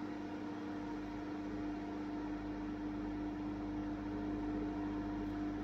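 Inline duct fan running steadily at reduced power, set to about half by a plug-in dimmer: a steady hum with a held droning tone over an even rush of air.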